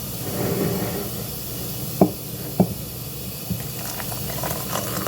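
Hot water being poured into a container of grated herbs, a steady hiss, with two sharp knocks about two seconds in.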